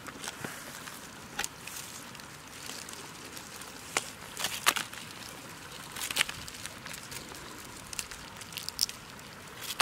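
Scattered sharp clicks and scratchy rustles from a woven bamboo basket holding live freshwater crabs, fish and snails as the catch shifts and the basket is handled, over a steady hiss.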